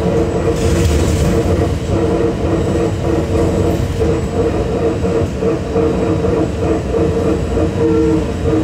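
Guangzhou trolleybus under way, heard from inside: a steady electric drive hum over low road and body rumble, with a brief hiss about a second in.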